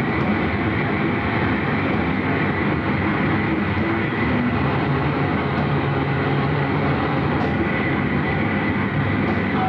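Steady, loud rumble of a vehicle in motion, unchanging throughout.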